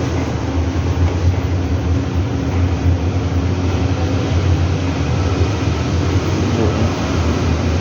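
LG washing machine running on a test cycle after servicing, a steady rumble with a low hum from the motor and turning drum.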